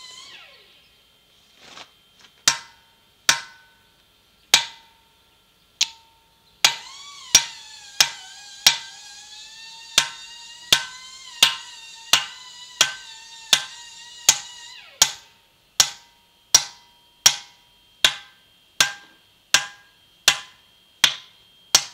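Hand hammer striking steel feathers and wedges set in drill holes in a marble block, driving them in to split off a corner of the stone. About two dozen sharp, ringing metal strikes come at a steady pace of roughly one every three-quarters of a second, starting a couple of seconds in, with one short pause.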